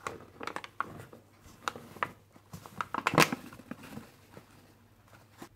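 Paper flour bag handled and emptied into a stainless steel bowl: irregular crinkles, ticks and light knocks, the sharpest a little after three seconds in, dying away about four seconds in.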